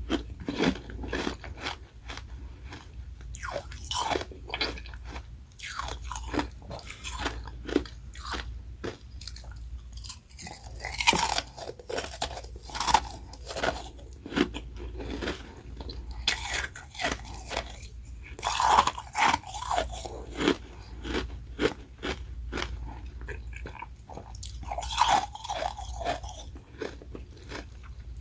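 Ice being bitten and chewed close to the microphone: a steady run of sharp, hard crunches.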